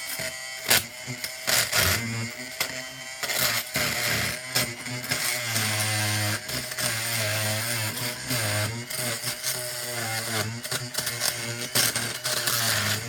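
Oscillating multi-tool (Dremel Multi-Max) buzzing as it cuts through old upholstery, its pitch wavering with the load. Several sharp knocks come in the first few seconds.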